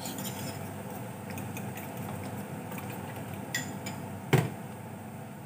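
Spoon clicking and scraping against a ceramic bowl while egg mixture is stirred, then the bowl set down on the metal stove top, with one sharp, louder knock about four seconds in, over a steady background hiss.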